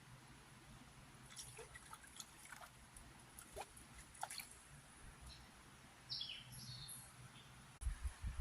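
Faint creek-side ambience: scattered light water drips, each a short quick glide in pitch, and a brief bird call a little past the middle.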